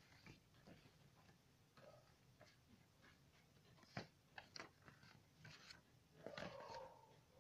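Faint crackling and rustling of craft paper being creased and handled, with a sharp tap about four seconds in and a louder rustle between six and seven seconds.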